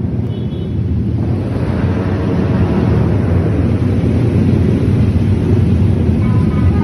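Yamaha R15 V3 motorcycle running, with heavy wind noise on the microphone. Near the end the tones of a multi-tone basuri (telolet) horn begin to sound.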